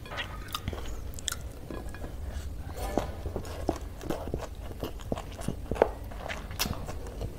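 Mouth sounds of a person eating stir-fried chowmein noodles: slurping strands in and chewing, with many short wet smacks and clicks.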